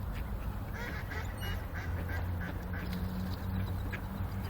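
Ducks quacking, a quick run of short calls about a second in, over a steady low rumble.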